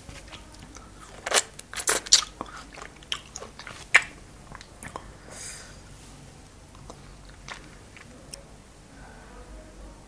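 Close-miked biting and chewing of frozen cherries, with several loud, crisp crunches in the first four seconds, then quieter chewing.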